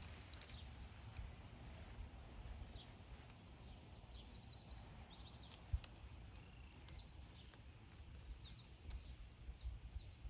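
Faint outdoor ambience: small birds chirping now and then, with a quick run of chirps about five seconds in, over a low steady rumble.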